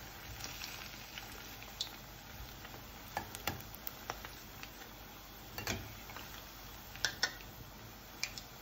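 Vadai fritters deep-frying in hot oil, a steady sizzle, with a few light clicks of a slotted metal spoon against the steel pan as they are turned.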